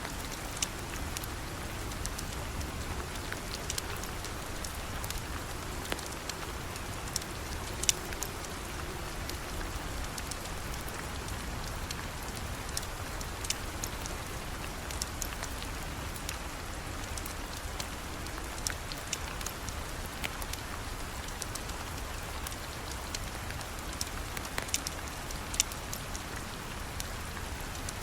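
Steady rain falling, with scattered sharp ticks and pops on top.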